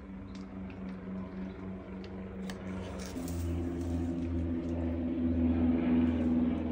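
Steady hum of a running motor, which shifts to a different pitch about three seconds in and grows louder toward the end.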